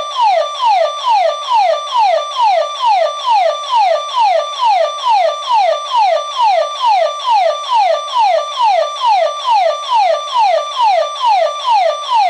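Electronic burglar alarm siren sounding a triggered intruder alarm: a loud, fast, repeating falling tone, about two sweeps a second, each holding a high note briefly and then dropping to about half the pitch.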